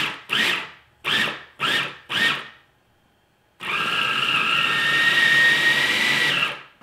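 Hamilton Beach food processor blending a cheese ball mixture: a few short pulses of the motor, then after a pause of about a second, one steady run of about three seconds with a high whine that cuts off suddenly.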